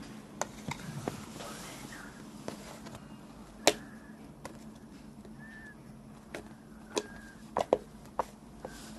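Slime being squeezed and poked by hand, giving about a dozen irregular sharp pops and clicks as trapped air bubbles burst, with a few short squeaks. The loudest pop comes a little under four seconds in, and a quick cluster of pops comes near the end.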